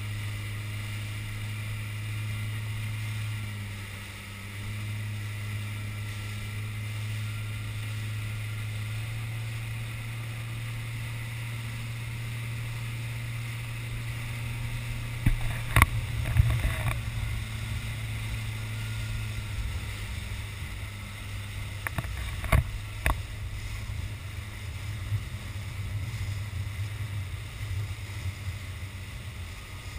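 Small motorboat's engine running with a steady low hum, heard from on board with water rushing past the hull. A few sharp knocks come about halfway through and again a little later, and the ride grows rougher toward the end.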